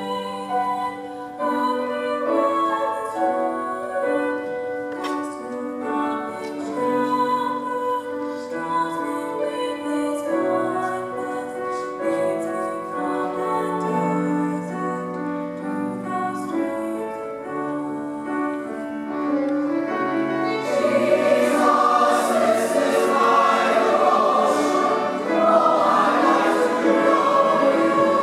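A young woman sings a solo. About 20 seconds in, the full mixed youth choir comes in and the singing grows louder and fuller.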